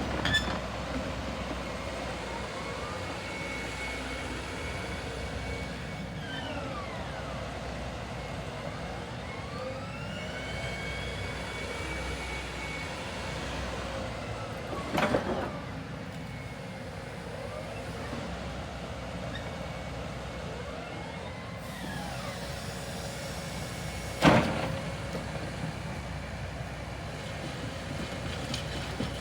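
A Komatsu HB215LC-2 hybrid crawler excavator running and working. A steady engine sound runs under whines that rise and fall several times as the machine moves. There are two sharp knocks, one about halfway through and a louder one about three quarters through.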